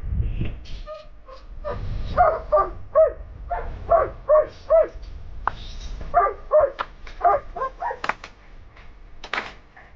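A dog barking repeatedly in short barks, about two to three a second, over a low rumble.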